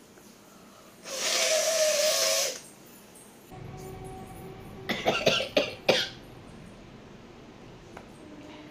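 A woman blowing her nose hard in one sustained blast of about a second and a half, starting about a second in, followed near the middle by a quick run of short coughs.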